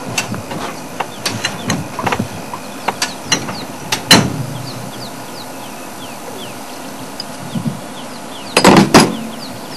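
Metal clicks and knocks from working a high-lift jack and tools during a tyre change. Irregular clicking runs through the first few seconds, with a loud clank about four seconds in and two more near the end.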